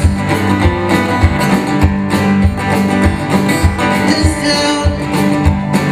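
Rock band playing an instrumental passage: guitars over bass and a steady drum beat.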